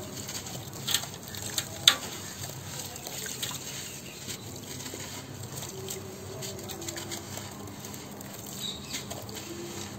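Hands squeezing and crumbling clumps of wet sand in a shallow basin of water: a crackly crunching with crumbs pattering into the water, and a few sharp clicks in the first two seconds.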